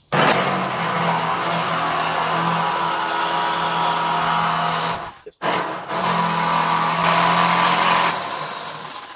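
Black & Decker jigsaw cutting across the grain of a 25 mm timber benchtop, fitted with a metal-cutting blade, the wrong type for wood. It starts suddenly and runs for about five seconds, stops briefly, then restarts and winds down near the end with a falling whine.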